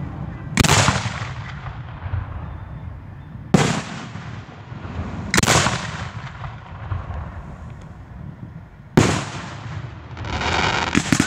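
Aerial firework shells bursting: four loud booms spaced a few seconds apart, each trailing off in an echo. Near the end a hiss rises into fast crackling.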